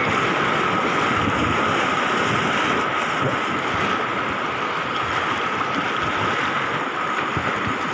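River rapids: whitewater rushing and churning steadily, with wind buffeting the microphone.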